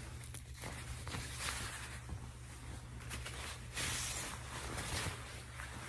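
Windbreaker jacket fabric rustling as the jacket is pulled off, loudest about four seconds in.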